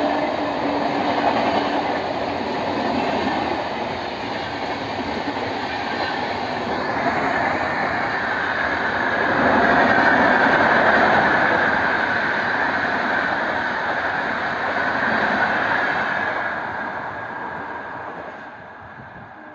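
Indian Railways LHB passenger coaches passing at speed: a steady rush of wheels on rail, with a ringing squeal through the middle of the pass. It fades away near the end as the last coach goes by. A held horn note from the electric locomotive dies away in the first couple of seconds.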